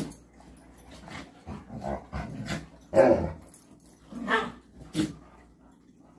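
Two dogs play-wrestling, giving a run of short play growls and barks, the loudest about three seconds in.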